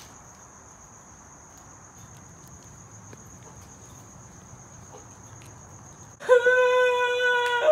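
A cricket trilling one steady high note over faint background hiss. About six seconds in, a person's voice cuts in loud with a long held cry on one pitch.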